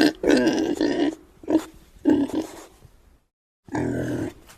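Pig grunting: about five grunts, the second drawn out to nearly a second, with a brief cut to dead silence a little past the middle.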